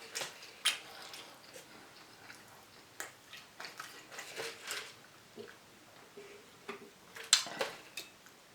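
Close-up eating sounds of someone chewing smoked barbecue ribs: scattered wet mouth clicks and lip smacks, with the loudest few near the end.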